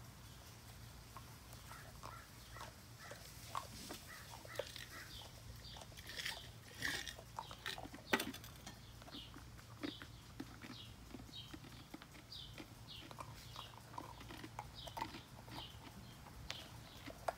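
A Border Collie puppy crunching and gnawing an ice cube: irregular small crunches and clicks of ice against teeth and paving, with one sharper crack about eight seconds in.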